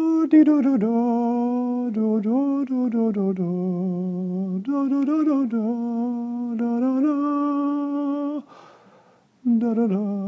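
A person humming a slow tune, holding each note for a second or so and stepping between pitches. There is a short pause for a breath near the end.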